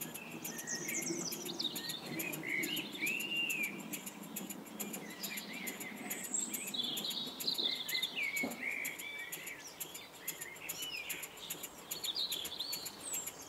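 Small birds chirping and singing over the rapid, even ticking of a Wig-Wag triple inline model steam engine running.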